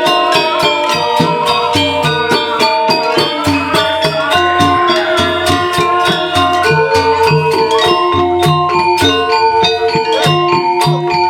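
Balinese gamelan playing dance music: metallophones ringing steady repeated notes over fast, dense percussive strikes and regular low pulses.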